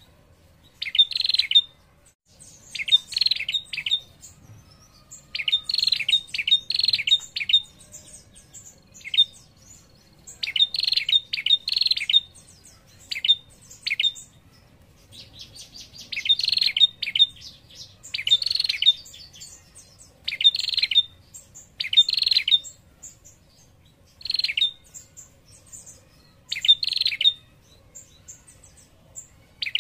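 Female prenjak calling with its rapid ticking 'ngetir' trill in short bursts, one every second or two. It is the female's call used to lure a male prenjak into answering.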